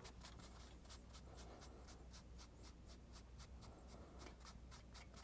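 Faint, quick dabbing of a paint sponge on canvas, about four light taps a second, over a low steady hum.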